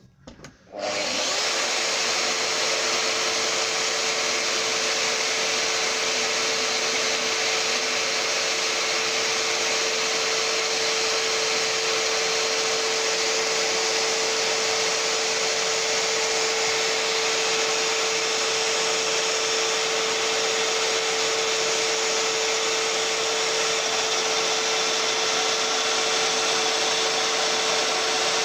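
A Festool Domino joiner and its dust extractor start up about a second in and run steadily at a constant pitch, with one steady hum under the noise.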